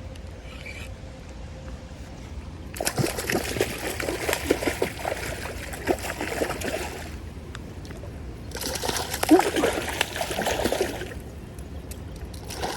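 Water splashing in two spells of a few seconds each over the steady sound of running creek water: a hooked brown trout thrashing at the surface as it is brought in.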